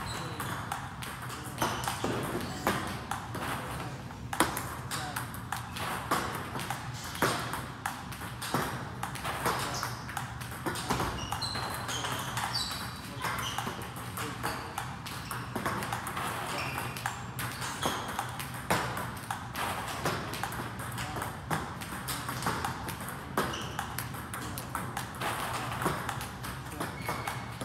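Celluloid-style plastic table tennis balls being struck by rubber paddles and bouncing on the table in a fast forehand topspin drill: a steady run of sharp pocks, several each second, with no pause.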